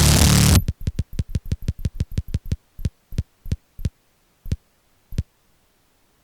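Harsh, loud electronic music cuts off about half a second in. A run of drum-machine kick hits follows, quick at first and then slowing down, further and further apart, until the last one about five seconds in.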